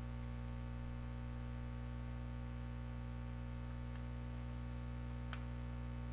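Steady electrical hum made of several steady tones, with a few faint clicks, the clearest about five seconds in.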